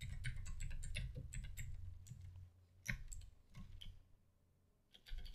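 Computer keyboard typing: a quick run of keystroke clicks over a low hum that fades out about halfway through. The clicks pause about four seconds in and start again near the end.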